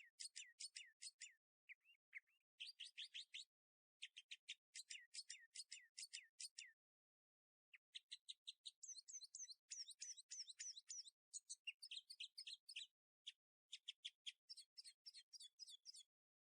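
Small bird chirping in rapid trains of short, sharp high notes, in bursts of a second or two with brief pauses between.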